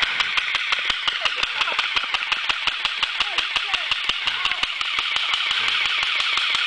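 Cheap electric automatic airsoft gun firing on full auto: a rapid, even stream of shots, about ten a second, over a continuous hiss.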